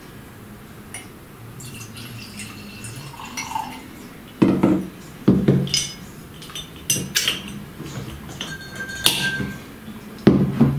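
Mead poured from a swing-top glass bottle into a small glass, followed by a series of sharp glass knocks and clinks as the bottles are set down and moved on a wooden table; the loudest knock comes near the end.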